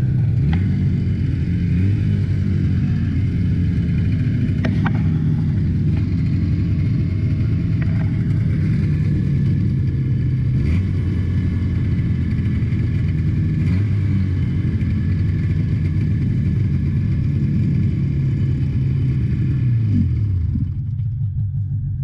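Two-stroke snowmobile engine idling steadily with its hood open, its note wavering and dipping briefly near the end.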